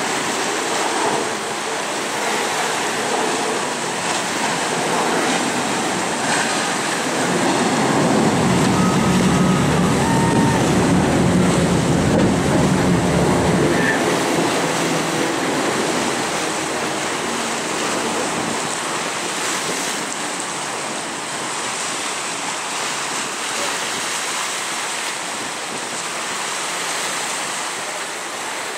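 Sea waves washing and wind buffeting the microphone, with a deeper rumble swelling for about six seconds in the middle.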